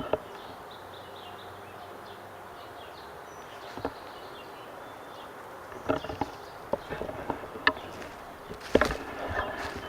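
Outdoor background with faint insect buzzing, then from about six seconds in a run of short clicks and knocks from handling gear or moving through brush, the loudest near the end.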